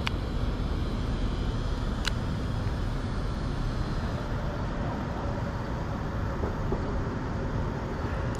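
Steady low rumble of outdoor background noise, with two brief, faint high-pitched chirps, one at the very start and one about two seconds in.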